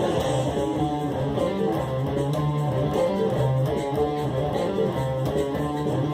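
Instrumental band music: electric guitar lines over a moving bass line, with light percussion ticks keeping a steady beat.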